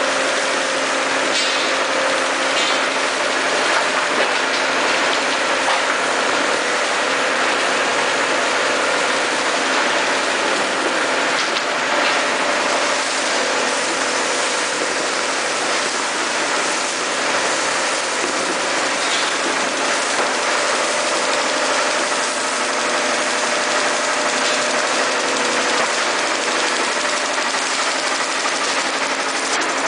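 Shallot packhouse conveyor line running steadily: a dense, constant machine noise with a steady low hum, as shallots, soil and stones travel along the belt.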